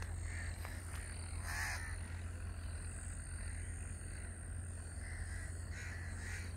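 Crows cawing: several short caws, the loudest about one and a half seconds in and a quick run of them near the end, over a steady low hum and a thin, steady high-pitched tone.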